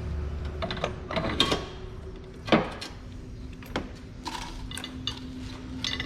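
Scattered metal clinks and knocks as the engine mount assembly and its bolts are handled and set back into place, with one louder knock about two and a half seconds in.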